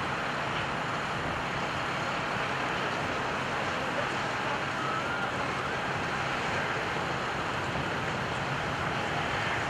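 Steady, distant roar of a Boeing C-17 Globemaster III's four Pratt & Whitney F117 turbofan engines as the transport approaches to land.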